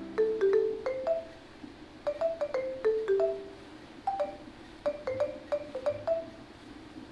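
Background music: a light melody of short struck notes, each ringing briefly and fading, a few notes a second.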